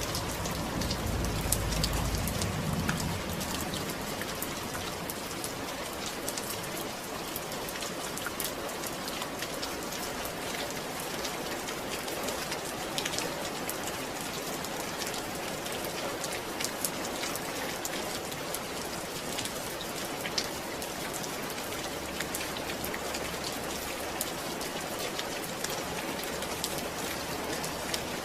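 Steady rain falling: a dense, even hiss dotted with sharp ticks of individual drops. A low rumble sits under it for the first few seconds.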